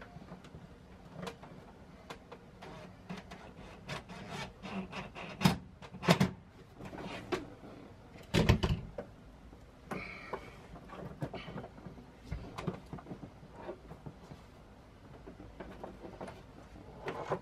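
Scattered knocks, clicks and clatter of tools and cable being handled during wiring work inside a van, with a few sharper bangs, the loudest about five to six seconds and eight and a half seconds in.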